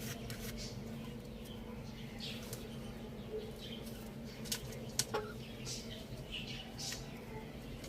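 Chickens feeding, with a few sharp pecking taps about halfway through among scattered short high bird chirps, over a steady low hum.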